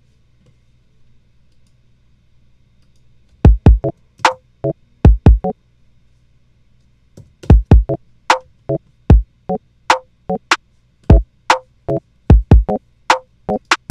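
Electronic drum-machine samples triggered one hit at a time: deep kick hits and sharper, higher hits. They start about three seconds in, sparse and irregular at first, then come closer together in a loose beat from about seven seconds in.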